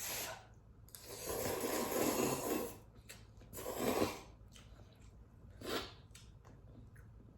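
Cup noodles being slurped: one long slurp of more than a second, then a shorter one, and a brief third, with small mouth or utensil clicks between.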